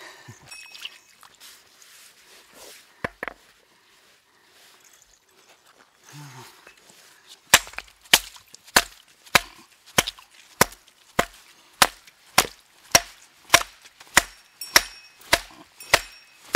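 A steel hammer striking a large rock nodule to crack it open in search of fossils: a single knock about three seconds in, then a steady run of hard blows, nearly two a second, starting about halfway through. A faint metallic ring follows some of the later blows.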